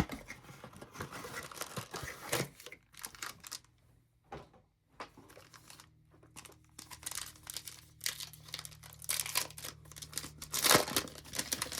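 A Panini Select baseball card pack wrapper crinkling and tearing as it is ripped open and handled, in irregular bursts, with a short lull about four seconds in and the loudest crinkles near the end.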